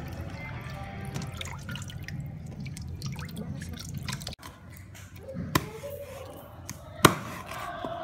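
Water sloshing and dripping as hands wash chopped vegetables in a steel bowl, with tap water running into it. About four seconds in it stops, and a couple of sharp knocks follow, the loudest near the end.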